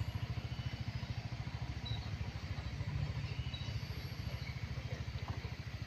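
Small engine idling steadily, with an even, rapid low chugging.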